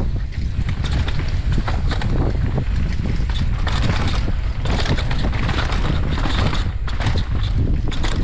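Downhill mountain bike descending a dirt and rock trail at speed: knobby tyres on the dirt and the bike clattering over bumps and rocks in many quick knocks, over a steady rumble of wind on the microphone.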